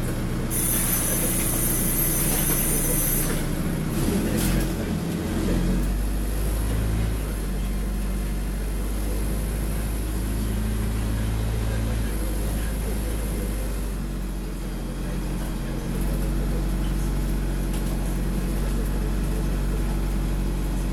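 Ikarus 405 city bus heard from inside the passenger cabin: its diesel engine runs with a steady low drone that shifts in pitch about four to five seconds in and then holds. A high hiss lasts about three seconds near the start.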